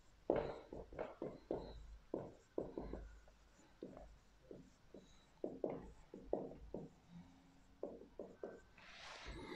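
Dry-erase marker writing on a whiteboard: a quick, irregular run of short strokes with brief pauses between the words.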